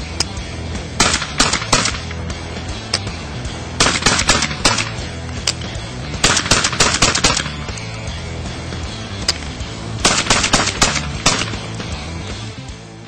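Semi-automatic 12-gauge Beretta Xtrema2 shotgun fired in quick strings of shots, four bursts with a few single shots between, over background music.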